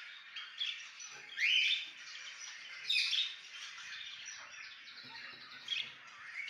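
Budgerigars chirping: a few louder rising calls, about one and a half and three seconds in, over soft steady chatter.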